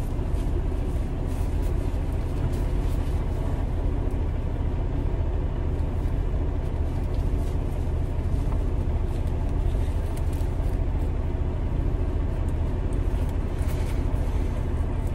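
Semi-truck's diesel engine idling, a steady low hum heard from inside the cab, with faint rustling as a safety vest is pulled on.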